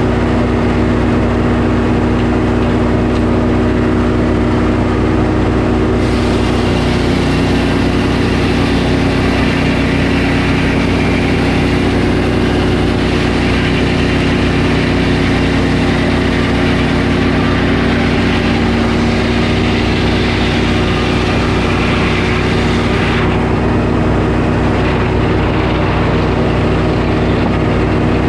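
Portable sawmill's engine running steadily. From about six seconds in until a few seconds before the end, a hiss rides over it as the blade cuts through a pine log.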